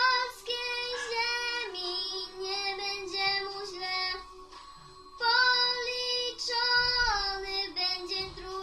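A young girl singing a Polish patriotic song solo. One phrase runs about four seconds, then a pause of about a second, then another phrase starts.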